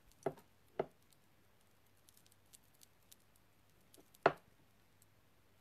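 Small handling sounds: a few short soft knocks, two close together right at the start and a louder one about four seconds in, with faint light ticks between, over low room tone.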